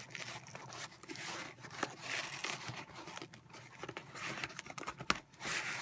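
Shipping package being torn open and its packaging crinkled by hand, an irregular rustling with scattered clicks and a sharp click about five seconds in.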